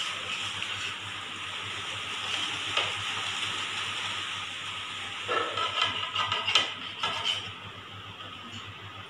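Steady background hiss, with a few light clicks and knocks of dishes and utensils being handled on a table: one near the start, one about three seconds in, and a short cluster past the middle.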